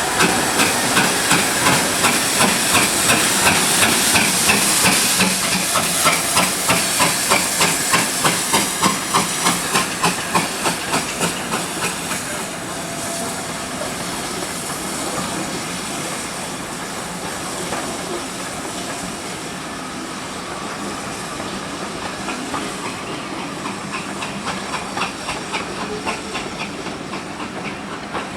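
Steam locomotive working, its exhaust beats chuffing at about two to three a second with steam hiss, the beats fading after about twelve seconds into a steadier hiss.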